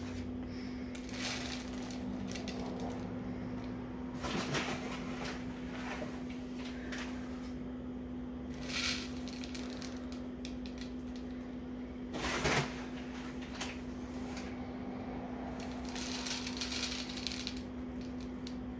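Seed grain poured by hand into a plastic tub, rattling in a series of short pours spread through, with a steady low hum underneath.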